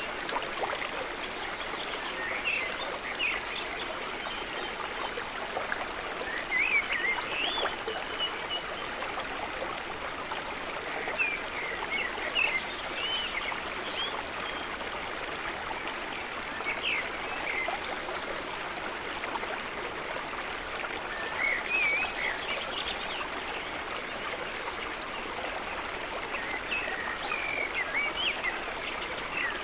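A stream of water flowing steadily, with short high chirps every few seconds.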